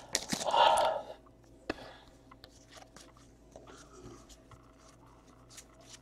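Foil trading-card pack wrapper crinkling for about the first second, then faint rustles and light clicks as baseball cards are slid and flipped through by hand.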